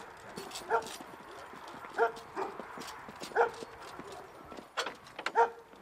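A dog barking repeatedly, about six short barks, each roughly a second apart, mixed with scattered sharp clicks.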